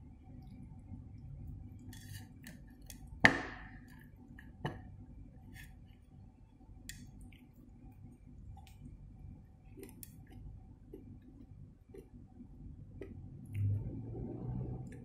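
Cat eating off a tiled floor, with faint crunching and small ticks of chewing. A sharp clink with a short ring about three seconds in, and a smaller knock a second later.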